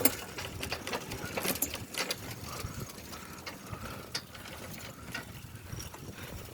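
Film equipment being handled and moved: irregular clicks, clanks and rattles, with a sharp knock right at the start.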